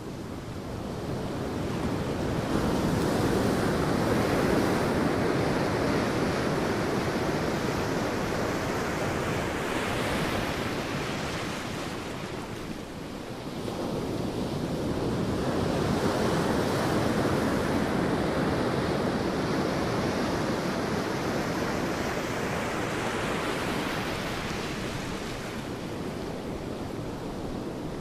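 Sea waves breaking and washing up a beach: two long surges, each building over a couple of seconds and slowly receding, the second starting about halfway through.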